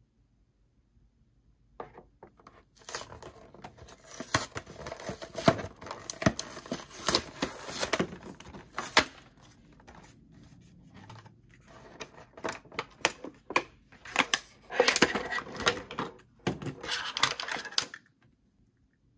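Toy packaging being handled and opened, a dense run of crinkles, taps and tearing noises. It starts about two seconds in, eases off for a moment midway and stops abruptly near the end.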